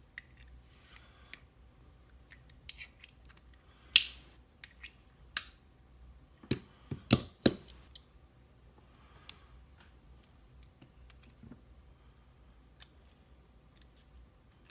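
Scattered sharp metallic clicks and taps of a euro lock cylinder and a thin shim being handled, with a cluster of louder clicks about two thirds of the way through.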